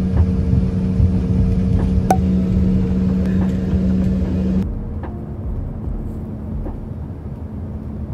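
Airliner engine drone and rumble heard from inside the cabin, with a steady hum. A little past halfway it changes abruptly to a duller, quieter rumble.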